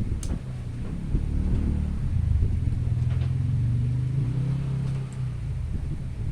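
A motor vehicle's engine running, a low rumble that grows louder in the middle and then eases off, with a sharp click near the start.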